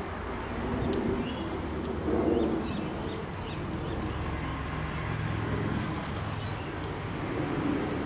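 Doves cooing: soft, low coos repeated several times, with brief high chirps from small birds in between. A steady low hum runs underneath.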